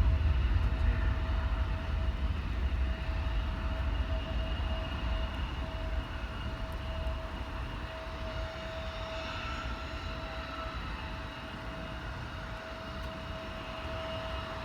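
Jet airliner engines: a low rumble with a steady whine, the rumble fading away over the first half as the aircraft moves off.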